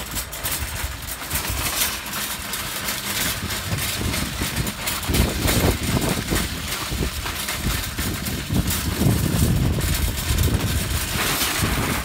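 Plastic-basket shopping cart being pushed over slush and icy packed snow, its wheels rattling and grinding with a rough, continuous rumble.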